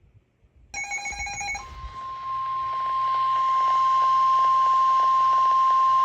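NOAA Weather Radio's 1050 Hz warning alarm tone: one loud, steady, unbroken beep over radio hiss, heralding a tornado warning. It starts between one and two seconds in, just after a brief cluster of high data tones.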